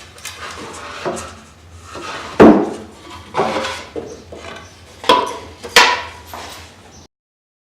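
Pieces of wood being handled and knocked together: a run of sharp wooden knocks and clatters, the loudest about two and a half seconds in. The sound cuts off abruptly near the end.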